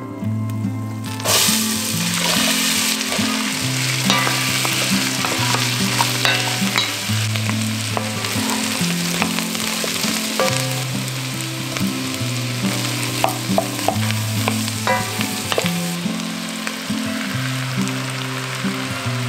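Diced onion, carrot and celery sizzling in hot oil in an enamelled cast-iron pot, with a wooden spoon scraping and tapping as they are stirred. The sizzle starts about a second in.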